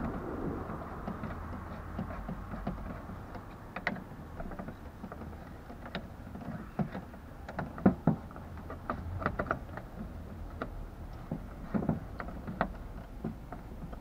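Hand screwdriver driving a Phillips screw into a plastic headlight trim strip: irregular small clicks and plastic knocks as the screw is turned and the part is handled, over a low steady rumble.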